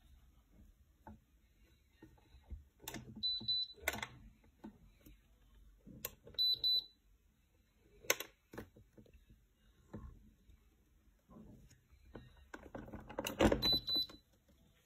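Handling knocks and clicks from a ceramic fan heater being tilted and set down while the pin switch on its base is pressed, with three short electronic beeps from the heater.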